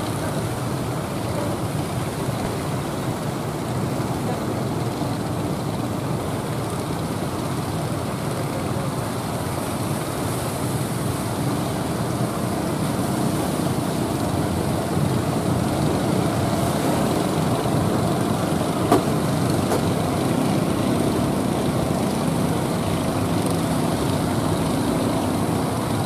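Engines of several outrigger fishing boats running steadily through rough surf, mixed with the rush of breaking waves and wind, a little louder in the second half. One sharp knock about three-quarters of the way through.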